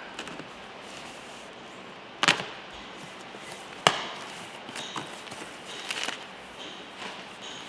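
Shipping box for a turbocharger being opened: two sharp knocks about two and four seconds in, among smaller clicks and handling noises.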